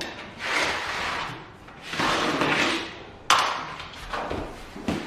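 Vinyl click-floor planks being handled: two scraping slides, then a sharp clack a little past halfway as a plank is set down, followed by lighter knocks.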